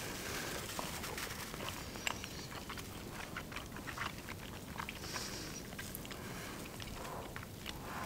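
Mouth sounds of eating: chewing, with a scatter of small clicks and smacks throughout.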